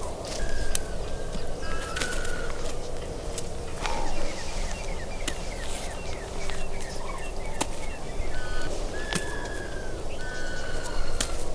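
Several birds calling: short whistled notes and a quick run of falling chirps in the middle. Scattered sharp clicks and knocks are heard over a steady low outdoor background.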